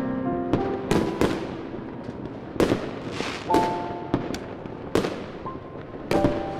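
Aerial fireworks shells bursting: a dozen or so sharp bangs at uneven spacing, each trailing off in an echoing tail, with a few faint held musical notes between them.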